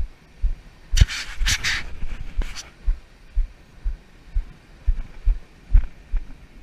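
Rhythmic low thumps, about two a second, of handling noise on a body-worn action camera as the fisherman moves, with a few short rushes of noise about a second in.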